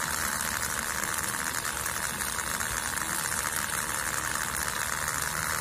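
Small 12-volt DC motor running steadily, spinning the shaft of a Tata BS3 speedometer sensor on a bench test, with an even, fairly high-pitched hum.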